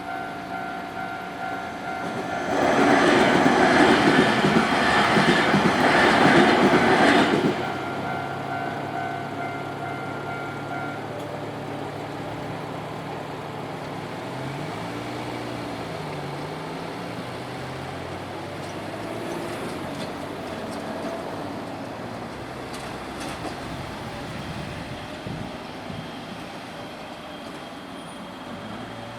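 A Nankai Main Line train passing over a Japanese level crossing: loud rail and wheel noise for about five seconds, starting two to three seconds in, over the crossing's steady warning bell. The bell stops about eleven seconds in, leaving lower road-traffic noise.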